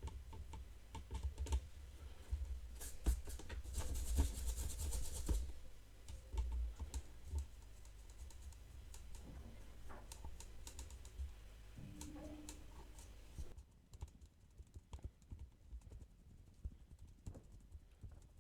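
Paintbrush dry-brushing a resin miniature: quick, light scratchy strokes and small ticks as the bristles and the model are handled, with a short denser scrubbing hiss about four seconds in.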